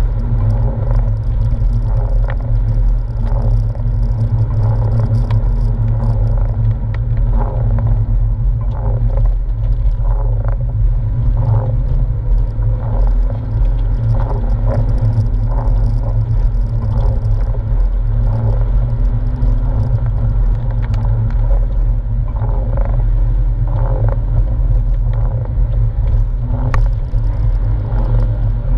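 Steady low rumble of a Porsche 997's flat-six engine and tyres on wet road, heard from inside the cabin while driving.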